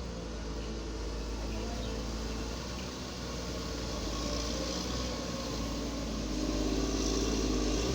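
Engine of construction machinery running steadily, a little louder in the last couple of seconds.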